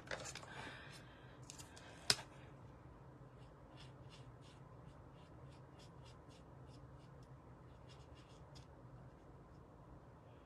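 Stippling brush dabbing ink onto cardstock in a run of soft, quick taps, about three a second, after a single sharp click about two seconds in.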